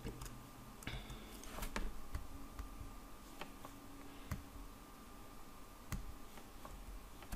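Faint computer mouse clicks, about ten at irregular intervals, over a faint steady room hum.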